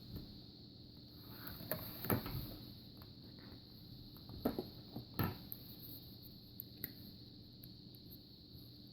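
A few faint, short knocks and rustles, the clearest about two, four and a half and five seconds in, over a steady faint high-pitched hum.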